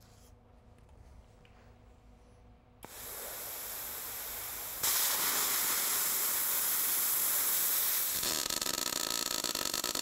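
A plasma cutter hisses as it cuts out a motor mount from plate steel. The hiss starts about three seconds in and gets much louder about two seconds later. About eight seconds in it gives way to the fast, uneven crackle of arc welding.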